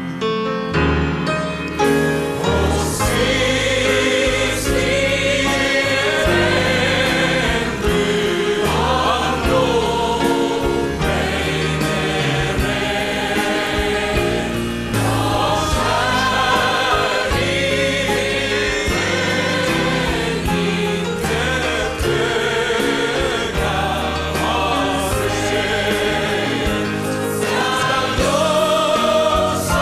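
A seated audience singing a Swedish hymn together with grand piano accompaniment, the full group singing coming in about two seconds in.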